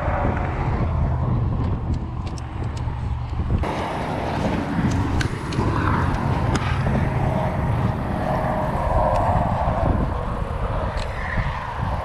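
Steady rumble of highway traffic mixed with wind on the microphone, with scattered light clicks and rustles of fishing gear being handled.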